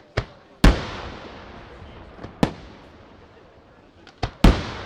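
Aerial firework shells bursting: about six sharp bangs, the loudest about half a second in and again near the end, each followed by a long rolling echo.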